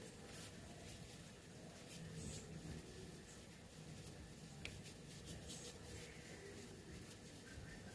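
Faint rubbing and soft handling noises of hands shaping dumpling dough, with a few light clicks.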